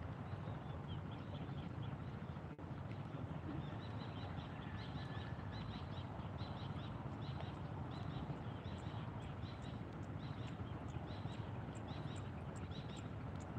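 Short high chirps from a small calling animal, repeating about three times a second in a long run that begins about half a second in, over a steady low rumble.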